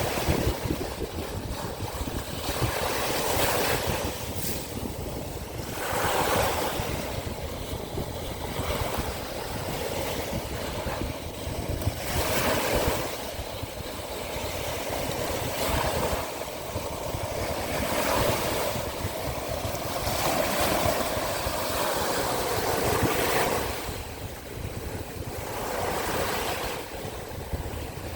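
Sea waves washing onto the shore of the Azov Sea, swelling and falling back in repeated surges every two to four seconds, with a steady low rumble of wind on the microphone.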